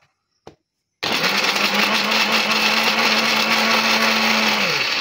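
Electric mixer grinder with a stainless steel jar, switched on about a second in and running loud and steady at full speed. It is switched off near the end, its hum dropping in pitch as the motor spins down.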